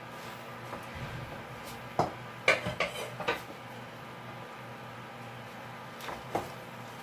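Wooden spatula knocking against the side of a pan while stirring water spinach leaves. A quick cluster of about five knocks comes about two seconds in, and two more come near the end.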